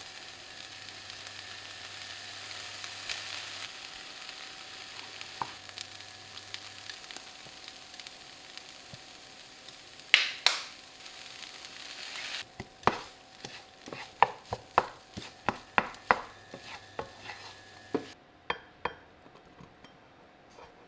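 Fried rice sizzling in a nonstick frying pan while it is stirred with a wooden spatula. From about halfway, a run of sharp taps and scrapes of the spatula against the pan, one or two a second; the sizzle drops away near the end.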